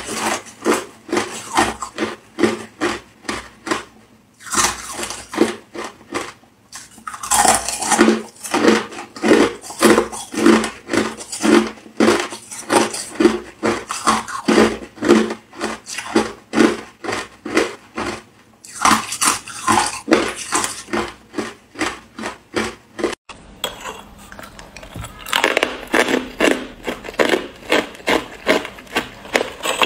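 Person chewing mouthfuls of crushed ice: a steady run of crisp crunches, about two or three a second, with short pauses between mouthfuls. After a sudden cut a little over two thirds of the way in, the crunching continues on harder frozen ice sticks.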